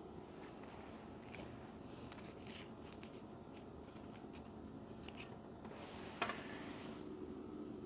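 Faint, brief rustles and light scrapes of a paper-backed gold leaf sheet being handled, with a knife tip working at the leaf, and one sharper tick about six seconds in.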